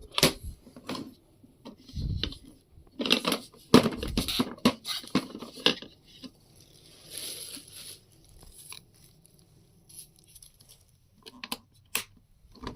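A new plastic drip coffee maker being handled and taken apart: irregular knocks and clicks of its plastic parts, with rustling now and then.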